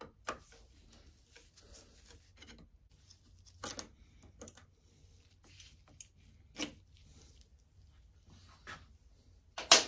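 Scattered clicks, taps and rubbing of gloved hands and a small hand tool working on a sportbike's handlebar lever and its mount as the lever is taken off. A sharper click near the end is the loudest sound.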